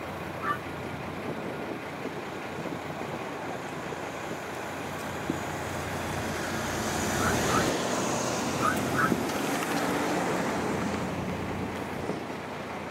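A vehicle's engine running steadily, with the noise swelling for a few seconds in the middle. Short paired chirps sound a few times over it.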